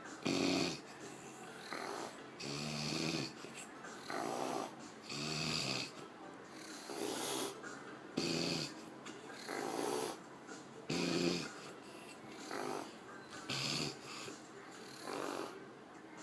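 A woman snoring in an even rhythm, a snore about every second and a half. Hissing breaths alternate with lower, rattling ones.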